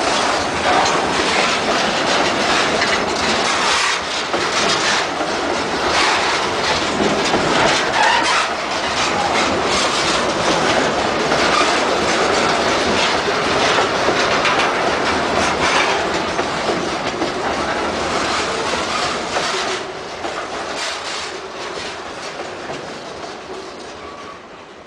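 Freight train of tank cars and boxcars rolling past close by, the wheels clattering steadily over the rail joints. The noise starts to fall off about twenty seconds in and fades away over the last few seconds as the end of the train moves off.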